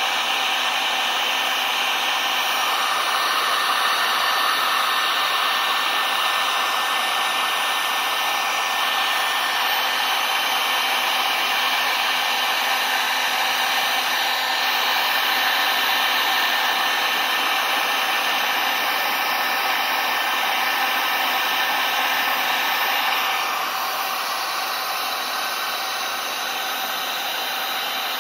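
Electric heat gun running steadily, its fan blowing a constant rush of hot air with a faint motor whine, as it heats ATV plastic to take out white stress marks. It gets a little quieter for the last few seconds.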